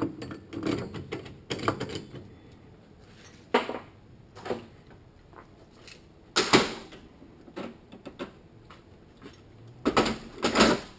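Metal automatic-transmission parts clinking and clattering as they are seated in the case and handled on a steel workbench: about half a dozen separate sharp knocks and short rattles, with a busier cluster near the end.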